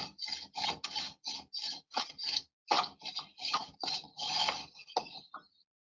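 Wooden straightedge sawed back and forth across a freshly placed ARDEX A 38 sand-cement screed mortar bed: a quick run of gritty scraping strokes, about four a second, with a short break about two and a half seconds in, stopping near the end.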